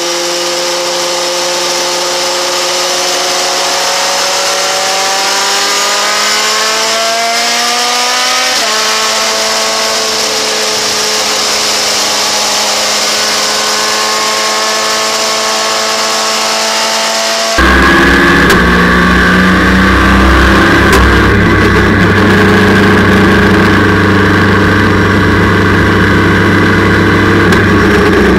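Race car engine at racing speed, heard onboard: the engine note climbs steadily under acceleration, drops sharply at an upshift about eight seconds in, then holds. About two-thirds through, the sound switches abruptly to a louder, fuller in-cockpit recording of an engine held at steady high revs.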